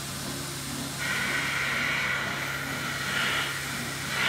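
A goat tearing and crumpling paper with her teeth: rustling and ripping, louder from about a second in, with a short sharp rip near the end.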